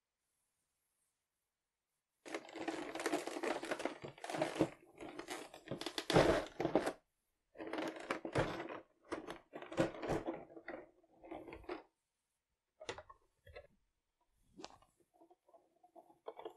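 Thin clear plastic blister trays handled and flexed, crinkling and crackling with many sharp clicks as accessories are pulled out. It starts about two seconds in, is busiest for the next several seconds, then thins to scattered clicks.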